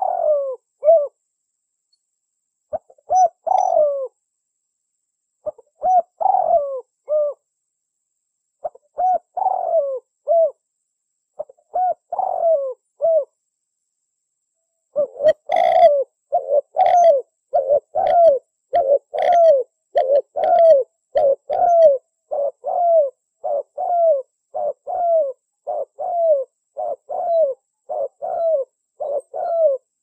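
Spotted dove (tekukur) cooing: short phrases of three or four low coos every few seconds. After a brief pause about halfway, a faster unbroken run of coos follows, a little over one a second.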